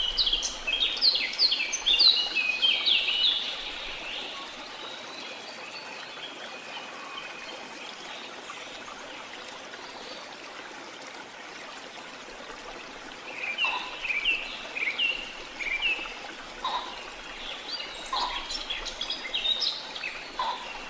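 Birds calling in quick runs of short falling notes over a steady rush of water. The calls stop about four seconds in and return a little past halfway.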